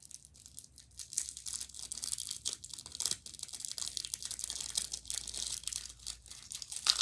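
Plastic candy wrapper crinkling and crackling as it is handled and pulled at between the fingers, a dense run of irregular sharp crackles.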